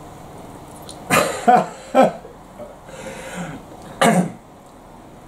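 Two people laughing in a few short, breathy bursts, the last about four seconds in.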